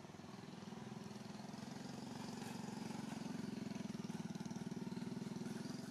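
A small engine running steadily, a low pulsing drone that grows louder and then drops away right at the end.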